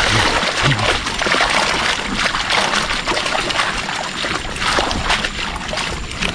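Water splashing and sloshing as a long-handled landing net is worked through the water inside a bamboo fish trap, with fish thrashing in the net, an irregular run of splashes.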